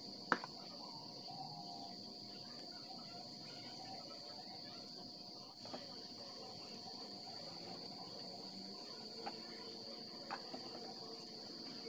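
Crickets chirring steadily in the background at a high, even pitch. A sharp knock comes about a third of a second in and a few lighter knocks near the end, as wooden strips are handled and fitted together.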